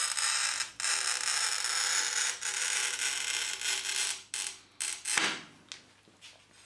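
Carbide scoring wheel of tile cutting pliers scoring a curved line across a glazed ceramic tile under firm pressure: a steady gritty scratching, with a brief break under a second in, that stops about four seconds in. A few light knocks follow.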